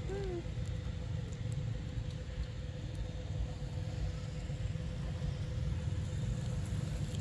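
A steady low rumble with a faint steady hum above it, and one short falling call right at the start.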